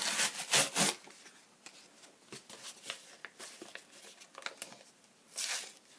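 Pokémon cards and their packaging handled on a tabletop: a cluster of rustles at the start, light clicks and taps through the middle, and another rustle about five and a half seconds in, as the boxed set is worked at to get it open.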